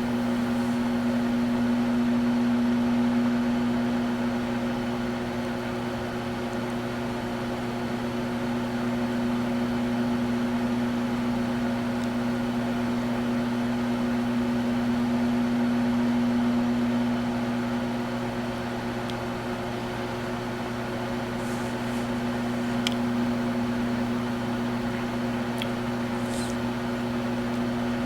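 Microwave oven running: a steady electrical hum with a low tone, slowly swelling and fading in loudness, with a few faint ticks in the second half.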